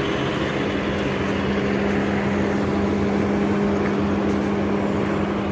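Vehicle engine running steadily: a constant low hum over an even wash of noise, with no change in pitch.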